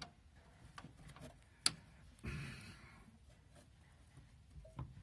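Faint scattered clicks and light knocks of metal parts being handled while refitting the brake pedal linkage, with one sharp click a little under two seconds in and a brief scrape just after.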